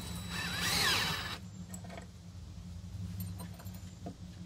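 Cordless drill with a 5/16 inch nut driver running for about a second and a half, driving an anchor screw through an iron pipe floor flange into brick, then stopping. A few light clicks follow over a steady low hum.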